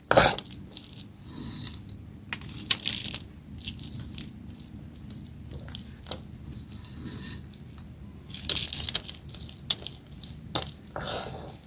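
Chopsticks stirring roasted peanuts into sticky candied ginger strands in an aluminium wok, with irregular scrapes and clinks against the metal. The loudest scrapes come just after the start, about three seconds in, and around eight to nine seconds in.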